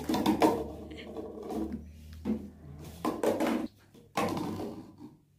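Clear plastic cups being flipped and knocking onto a tabletop in the flip-the-cup challenge, in several short, irregular clattering bursts.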